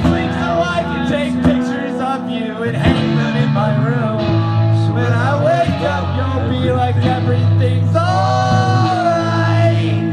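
Live rock band playing, with a singer and electric guitars; near the end the singer holds one long note.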